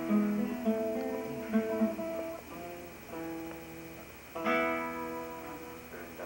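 Classical guitar played by hand: a run of picked notes ringing into one another, then a louder full chord about four and a half seconds in that rings out.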